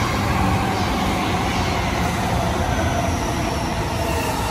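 JR Keihin-Tohoku Line E233-series electric train on the next track, running with a steady wheel and rail rumble. Its motor whine falls slowly in pitch as the train slows.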